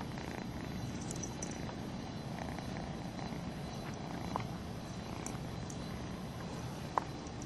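Kitten purring steadily, with a few small clicks, the sharpest about seven seconds in.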